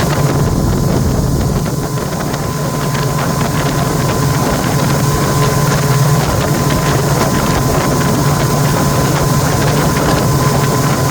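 Boat motor running steadily under way, with wind rushing over the microphone. A thin steady whine sits above the low engine hum.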